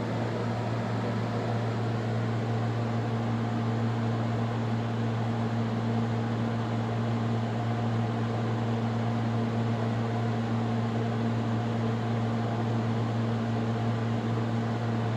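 LG window air conditioner running: a steady low hum under the even rush of its fan.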